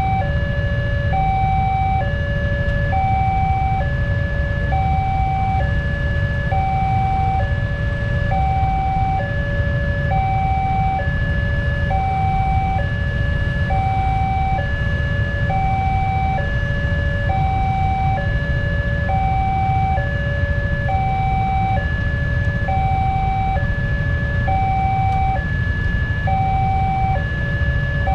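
Indonesian railway level crossing warning alarm sounding its electronic two-tone signal: a high tone and a lower tone alternate steadily, a little under a second each, over a low rumble. It signals that a train is approaching with the barriers down.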